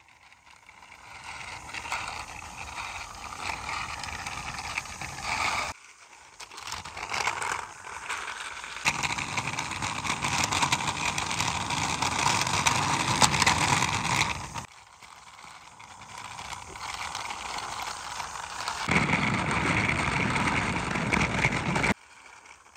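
Plastic toy dump truck's wheels rolling along rough concrete as it is pushed by hand, in several stretches that start and stop abruptly, the last one cutting off shortly before the end.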